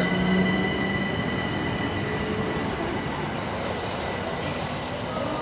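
Southeastern Class 375 Electrostar electric train pulling out past the platform: a rumble of wheels on rail with a steady high electric whine, fading slowly as it leaves. A low hum drops away about a second in.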